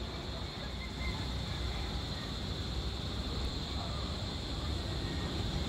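Steady outdoor background noise: a low rumble under a constant high drone, with a few faint short chirps about a second in.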